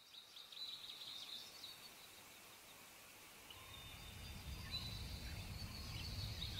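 Faint outdoor ambience of small birds chirping, with a low rumble growing from about halfway through.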